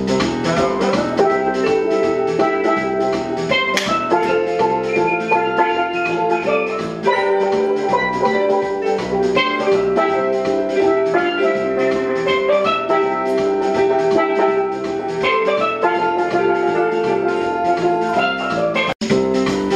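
Background music with a steady beat; it cuts out for an instant near the end.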